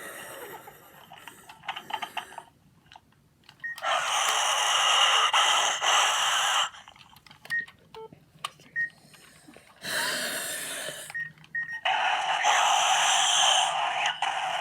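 Short, high electronic beeps from a small electronic toy, between stretches of harsh, hissy sound each lasting two to three seconds, heard three times.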